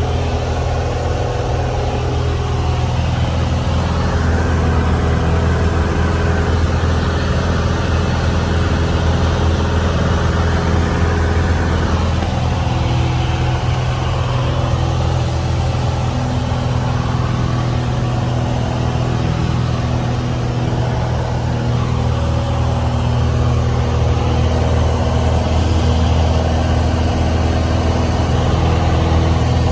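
Cessna 172D's Continental O-300 six-cylinder engine and propeller running steadily in flight, a constant low drone heard inside the cabin.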